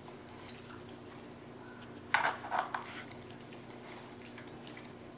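Dog working a plastic Dog Brick treat puzzle with its nose and mouth: faint ticks of the plastic, then a quick cluster of clicks and knocks about two seconds in.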